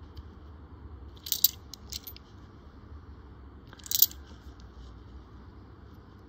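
Australian one-dollar coins clinking together as they are handled: a quick cluster of short metallic clicks about a second and a half in, another around two seconds, and one sharper clink about four seconds in.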